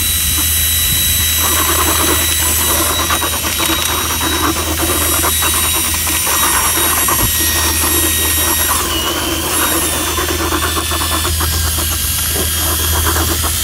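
Drill with a paddle mixer running steadily in a bucket, churning two-part SikaTop 123 Plus repair mortar as the powder component is added, with a steady motor whine over the gritty churn of the thickening mix.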